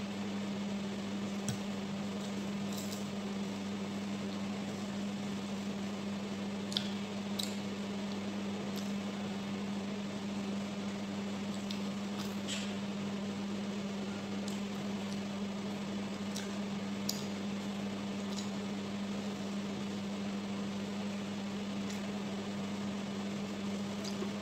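Eating with the hands from a bowl: faint chewing and a few brief light clicks, over a steady low hum.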